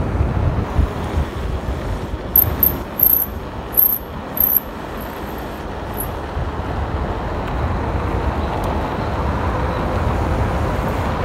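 Wind buffeting the microphone and tyre rumble of a mountain bike coasting down a paved road. A string of short, high-pitched squeaks comes a couple of seconds in.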